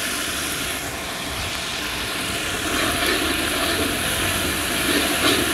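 Steady hissing of a large aluminium pot of dal, water and spices heating on the stove, with a slotted ladle stirring the liquid toward the end.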